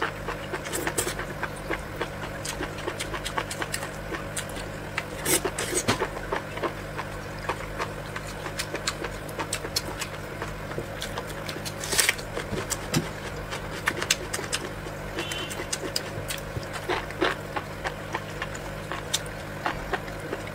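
Close-miked eating sounds: slurping and wet chewing of enoki mushrooms soaked in red chili oil, with many short mouth clicks and smacks, the loudest about five seconds in and again about twelve seconds in, over a steady low hum.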